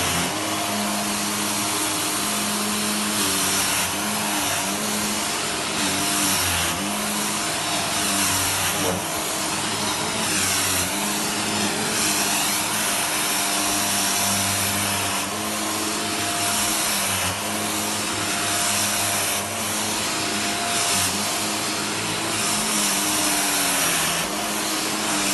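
Vacuum cleaner running on carpet, a steady motor whine and hiss of suction that swells and dips every second or two as the head is pushed and pulled.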